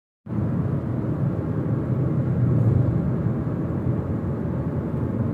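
Steady road and engine noise heard inside a moving car's cabin: a low, even rumble from the tyres and drivetrain.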